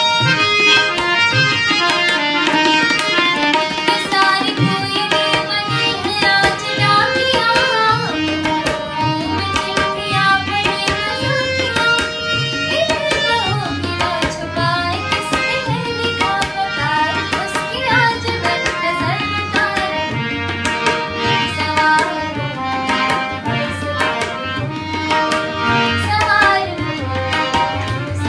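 A young woman singing an Indian song with tabla accompaniment keeping a steady beat throughout.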